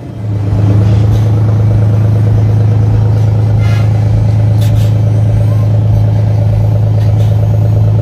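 Semi truck's diesel engine running at a steady speed close by: a loud, even low drone that holds one pitch throughout.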